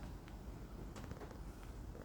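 Quiet background: a faint steady low hum with a few soft clicks.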